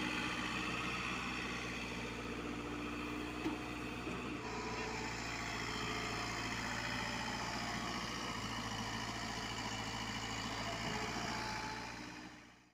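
Komatsu PC50UU mini excavator's diesel engine running steadily while the machine digs and swings a bucket of soil, with one brief knock about three and a half seconds in. The sound fades out near the end.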